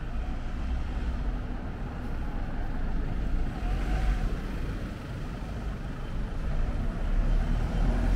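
Street traffic passing: car and taxi engines and tyres, with a low rumble that grows louder near the end as a double-decker bus draws close.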